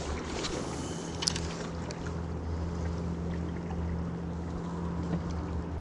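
Steady low hum of a small fishing boat's motor running, with a few light clicks about a second in.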